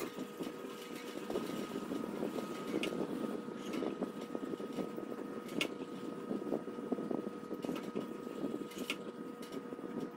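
15-micron diamond film on a guided sharpener's rod-mounted holder being stroked repeatedly across a ceramic knife blade, a continuous gritty scraping with a few sharp clicks.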